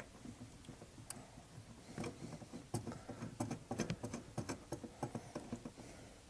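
Faint, irregular clicks and light scrapes of a new brake light switch being handled and threaded by hand into its threaded mounting hole at the brake pedal bracket.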